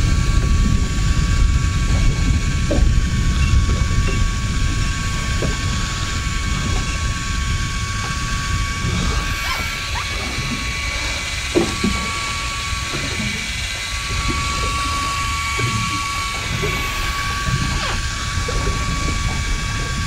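Small electric motor whining at a steady pitch, most likely an electric fishing reel winding line in, over a low rumble of wind and water, with a few short knocks.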